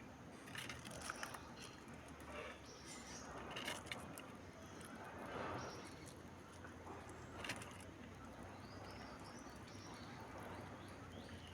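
Outdoor background with scattered sharp taps and clicks, and a run of short, high chirps about two-thirds of the way in.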